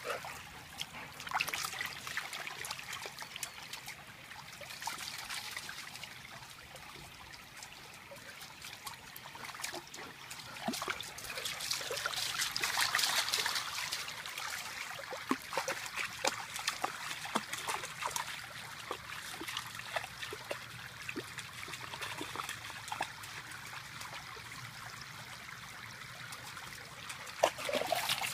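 Shallow stream trickling and running over rocks, with irregular small splashes as a Chesapeake Bay Retriever wades and paws in the water. The water swells louder for a couple of seconds near the middle.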